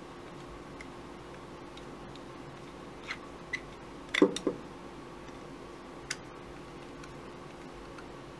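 A handful of small sharp clicks and knocks from a Honda CB650 carburetor's metal float bowl and drain plug screw being handled and turned in the fingers, the loudest double knock about four seconds in, over a faint steady hum.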